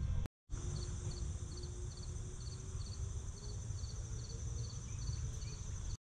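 Insects chirping: a steady high trill with a short chirp repeating about twice a second, over a low rumble. The sound drops out completely for a moment just after the start and again at the end.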